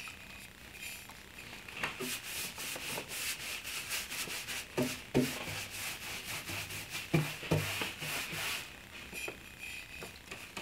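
Bristle brush stroking wood stain onto bare wood, a run of short rubbing strokes that come quicker from about two seconds in, with a few soft knocks.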